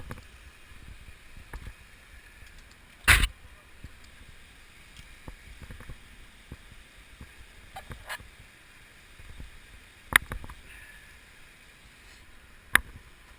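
Three sharp knocks, about three seconds in, ten seconds in and near the end, with lighter clicks between them, over a steady low rushing.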